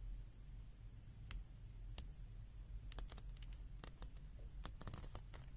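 Scattered light clicks from handling a pen-type digital multimeter, irregular and growing more frequent toward the end, over a faint steady low hum.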